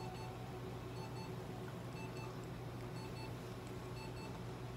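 Short electronic beeps from clinic equipment, repeating at a regular rhythm, often in pairs, over a steady low hum.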